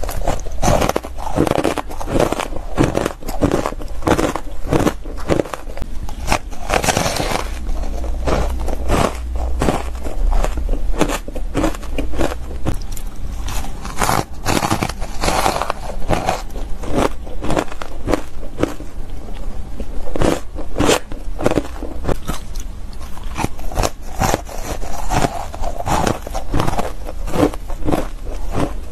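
Close-miked crunching and chewing of shaved ice coated in matcha powder: a dense, irregular run of crackly bites.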